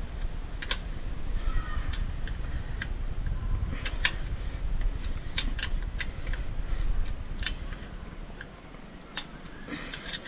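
Sharp, irregular metallic clicks of hand tools working a bolt on the motorcycle, over a low rumble that dies away about eight seconds in.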